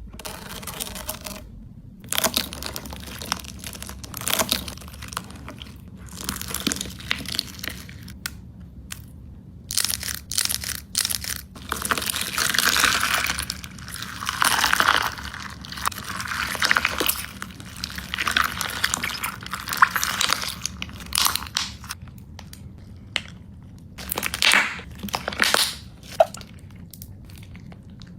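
Slime being squeezed and pressed by hand, giving irregular crackling bursts made of many fine clicks. The bursts are busiest around the middle and again near the end.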